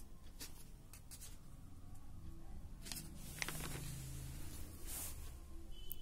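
Paper pages of a question booklet being handled and turned, with short rustles about three seconds in and again near five seconds.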